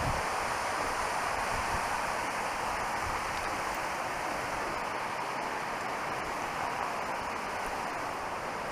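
Steady, even rush of a mountain stream cascading down a rock headwall.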